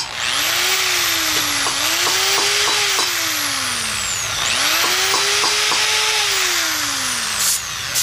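Drill press motor running as its bit drills into a carburetor's air screw whose slots are worn away, being drilled out to get it loose. The motor's pitch rises as it spins up and falls as it slows, twice, with a short hiss from the blow nozzle near the end.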